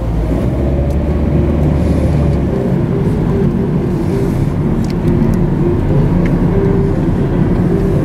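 Steady road noise heard from inside a moving car: a low rumble of tyres and engine.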